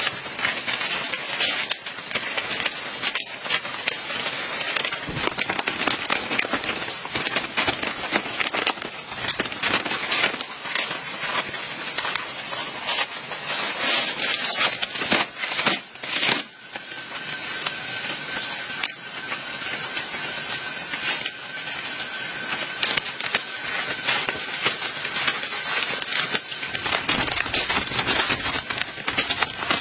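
Long green leaves rustling and crackling as they are handled, split into strips by hand and woven into a mat: a dense run of small crackles and rustles.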